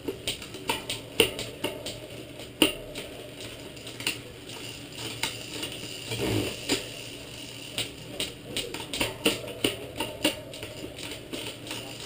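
Bicycle chain and Shimano rear derailleur being pedalled and shifted through the cassette cogs, clicking and clattering irregularly, with a louder stretch about halfway. The noise comes from B-tension set improperly, leaving the derailleur's upper pulley too close to the cassette.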